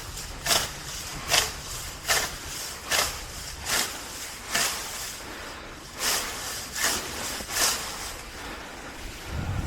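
Heavy, fast breathing close to the microphone from exertion during manual work: short rasping breaths in and out, about one every second, with a brief pause near the middle.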